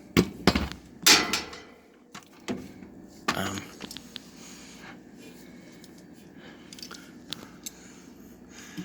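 Metal clunks and scraping as a heat-damaged 60 amp cartridge fuse is worked out of its clips in an old furnace's fuse box: a cluster of loud knocks and scrapes in the first few seconds, then a few faint clicks. The fuse is burnt and nearly shot from overheating.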